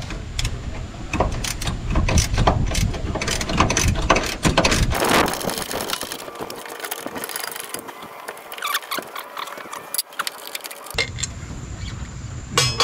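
Hand ratchet clicking in quick runs as a bolt is worked loose, with metal clinks and knocks of the tool on the car's sheet metal.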